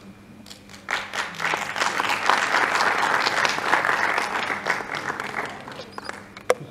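An audience applauding. The clapping breaks out about a second in, swells, then dies away before the end, and there is one sharp click just before the end.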